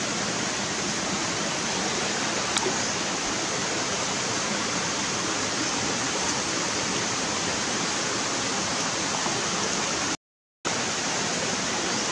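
Steady rush of running stream water, even and unbroken, cutting out completely for about half a second near the end.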